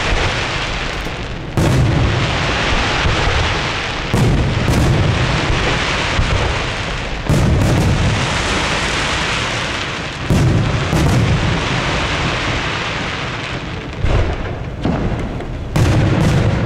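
Daytime fireworks: aerial shells bursting in about six loud booms a few seconds apart, each followed by a long rumble dying away, with sharp cracks between them and a quick string of cracks near the end.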